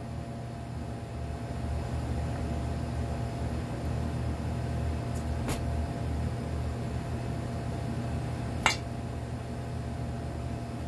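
Steady low hum of a running kitchen appliance, with a light clink of a utensil on a dish twice, about five and a half seconds in and near the end.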